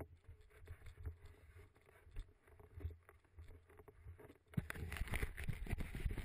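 Irregular rumbling and scraping noise on the camera's own microphone from wind and handling, with scattered knocks; it turns louder and denser about four and a half seconds in and cuts off abruptly at the end.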